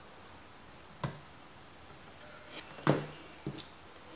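A few short clicks and light knocks from hands working small parts and a screwdriver over an open laptop. The loudest knock comes about three seconds in.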